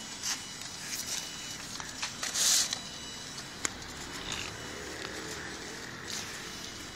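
Small four-wheeled robotic trolley rolling over concrete paving, with scattered clicks and knocks from the cart and a brief rustling burst about two and a half seconds in.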